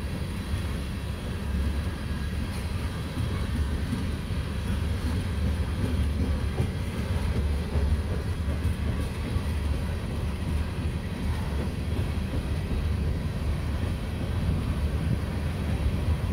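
Empty steel coal hopper cars rolling past on the rails: a steady low rumble of wheels on track.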